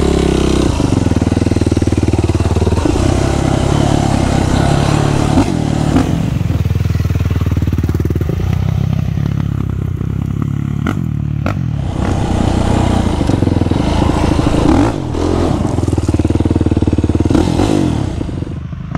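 Yamaha Raptor 700R quad's single-cylinder four-stroke engine running under load, its revs rising and falling on the hill climb. A few sharp knocks and clatters of the machine on rough ground come about five and eleven seconds in.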